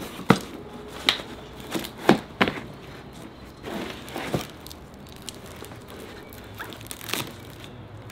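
Items being handled in cardboard boxes: scattered knocks and short rustles of cardboard and paper as things are lifted out and set down.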